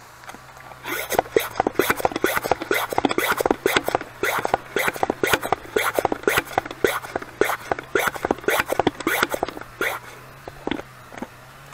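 Hand-pumped pressure sprayer being pumped up: a quick, scratchy run of pump strokes, several a second, for about nine seconds, then two last strokes near the end.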